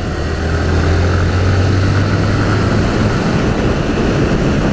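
Honda CG 160 Fan's single-cylinder four-stroke engine running steadily under a constant rush of wind as the motorcycle rides along; the low engine note fades about three seconds in.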